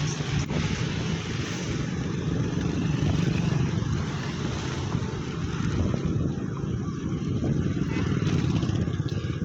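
A road vehicle's engine running steadily, with a low rumble and some wind noise.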